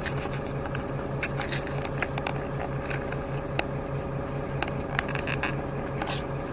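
Inside a city bus: the engine runs with a low, evenly pulsing hum, while the cabin gives off scattered clicks and rattles.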